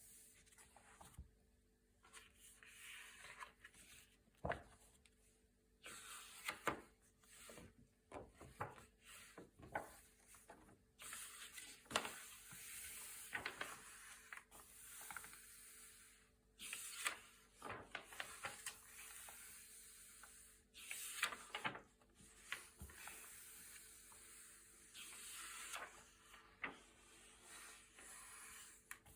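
Thick glossy paper pages being turned one after another: soft swishing rustles broken by sharp crinkles and taps of the stiff pages.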